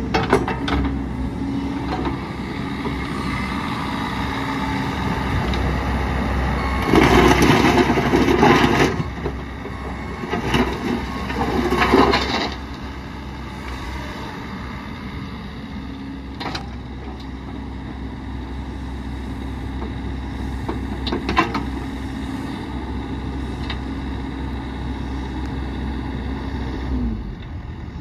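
Bobcat E55 mini excavator's diesel engine running steadily as the machine works its boom, arm and bucket, with two loud stretches of rushing, clattering noise about seven and ten seconds in. Near the end the engine note drops away.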